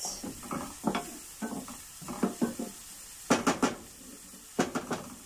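Wooden spatula scraping and knocking against a frying pan as chopped onions are stirred while they sauté, over a faint sizzle. Two quick runs of sharper scrapes come in the second half.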